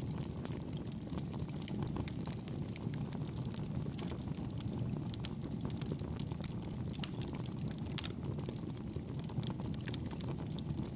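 Wood fire burning in a fireplace: a steady low rumble of flames with frequent small crackles and pops.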